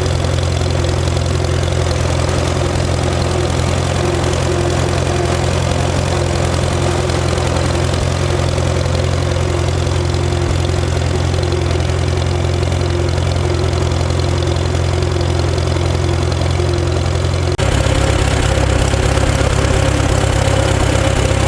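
An engine idling steadily, with a deep even hum; about seventeen seconds in the sound changes abruptly and becomes louder and rougher.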